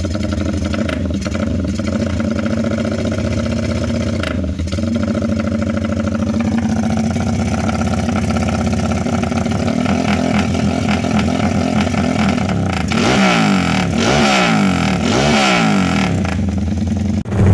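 Motorcycle engine running through an aftermarket BSS slip-on muffler with a steady, chopping 'helicopter' exhaust note. About three quarters of the way through, it is revved up and down three times.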